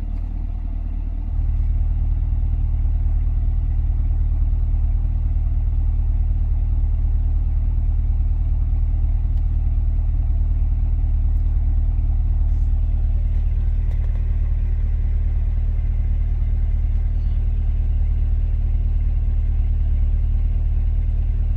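Chevrolet C8 Corvette's 6.2-litre V8 idling through its factory performance exhaust, heard from inside the cabin. About a second in, the exhaust valves open as the car goes from Tour to Sport mode, and the idle steps up louder and deeper, then holds steady.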